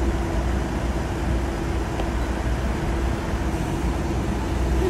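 Steady hum of idling vehicle engines and traffic, with a constant low rumble and a steady drone.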